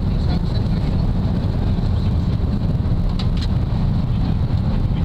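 Steady low rumble of engine and airflow noise inside a Boeing 777-200's passenger cabin in flight. Two faint clicks a little past the middle.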